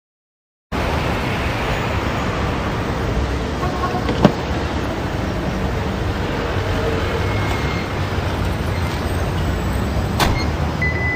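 Steady rushing background noise starts suddenly and carries on evenly. There is a sharp click about four seconds in, and another near the end that fits a hand working the front door's latch.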